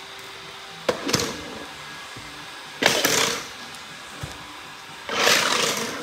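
Robot vacuum running with a steady hum. Three short, loud bursts of hiss cut across it about every two seconds, the first just after a sharp click.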